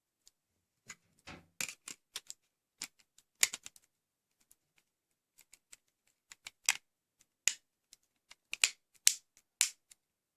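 Sharp plastic clicks and snaps from a Samsung Galaxy S4 as a replacement battery is fitted into it and the parts press into place. The clicks come irregularly, a couple of dozen in all, with the loudest snaps in the second half.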